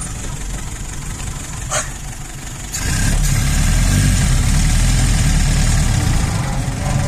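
1932 Citroën C4F's engine running as the car drives along, heard from the driver's seat. A single sharp click comes a couple of seconds in, and about three seconds in the engine sound grows louder and deeper and holds there.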